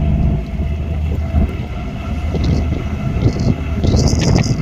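Steady low drone of a ship's engines heard on board while under way, with a few short bursts of hiss in the second half.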